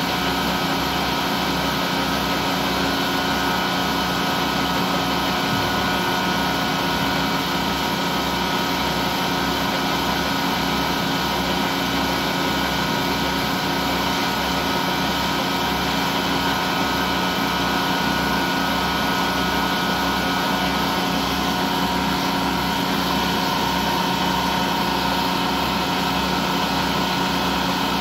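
Vertical turning lathe running steadily while its tool cuts a groove in a large metal ring: an even machine hum with several steady tones over a low, regular throb.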